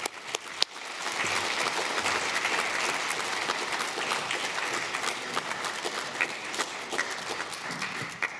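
Audience applauding: a few scattered claps, then steady applause from about a second in.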